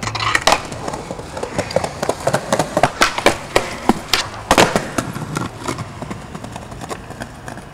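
Skateboard rolling on concrete with a quick, irregular run of sharp clacks and knocks from the board, loudest about four and a half seconds in and thinning toward the end.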